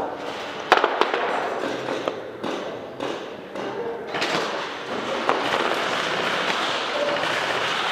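Scattered airsoft gunfire and BB impacts: a few sharp cracks, the loudest about three-quarters of a second in, over a continuous rustling noise.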